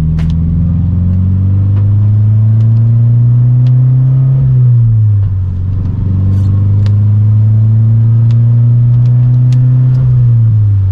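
2014 Subaru BRZ's flat-four boxer engine and exhaust pulling under light acceleration through a manual gearbox. The engine note climbs steadily, drops at an upshift about halfway through, then climbs again and drops with another upshift near the end.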